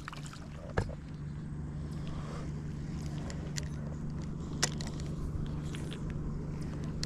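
A small motor running with a steady low hum, broken by two sharp clicks, one about a second in and another about two-thirds of the way through.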